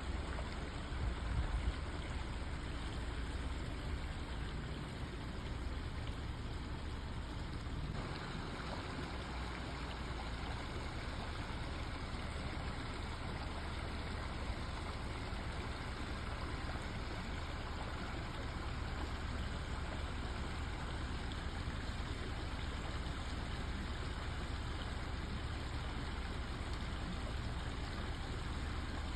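Steady rush of flowing creek water, an even noise that gets a little brighter about a quarter of the way in.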